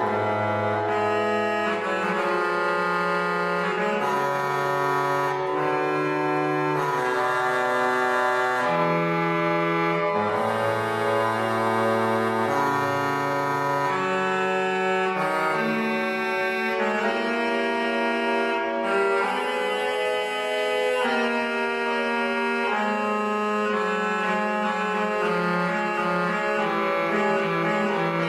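Historic Spanish pipe organ playing an improvisation in the half-register style (medio registro de bajo), with a solo line in the bass against sustained chords above. Each note and chord is held for a second or two, and the low line steps from note to note beneath them.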